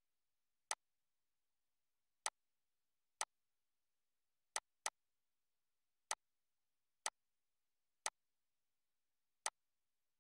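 Computer mouse clicking: nine short, sharp clicks at irregular intervals, two of them in quick succession about halfway like a double-click.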